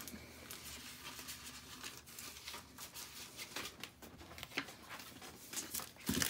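Paper rustling and crinkling with scattered light taps as a gift-wrapped shoe box is handled and turned over.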